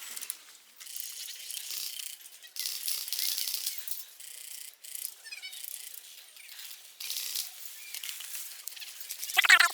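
Leaves and brush rustling in irregular bursts as someone moves through undergrowth, with faint bird chirps about five seconds in and a short, louder call-like sound near the end.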